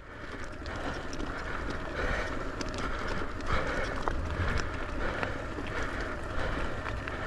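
An electric mountain bike rolling over a dirt trail: steady tyre and ground rumble with small clicks and rattles from the bike, and a higher hiss that swells and fades every second or so.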